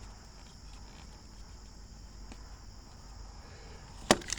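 Steady high chirring of crickets, then near the end two sharp snaps in quick succession from a HART staple gun driving brad nails into wood.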